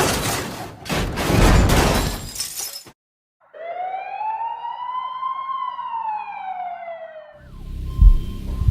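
Car crash: a few seconds of loud crunching and shattering, then a brief silence and one siren wail that rises and falls. Near the end a low hum starts with a heavy thump.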